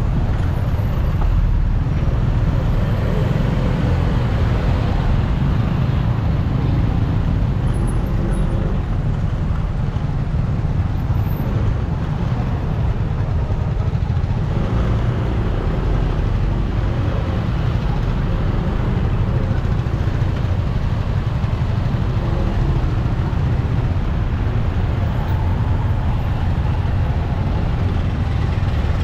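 Steady street traffic noise with a heavy low rumble, running on without a break.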